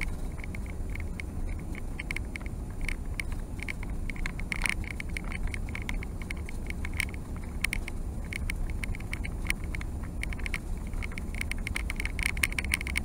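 Airbus A380 cabin noise while taxiing: a steady low rumble with frequent light clicks and rattles.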